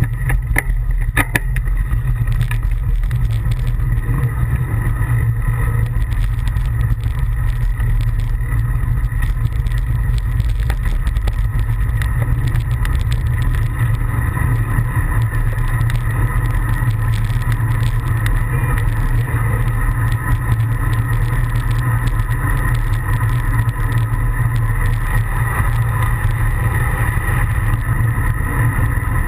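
Road bike riding at speed, heard through a camera mounted low on the bike: a loud, steady deep rumble of road and wind noise, with a few sharp clicks in the first second or so.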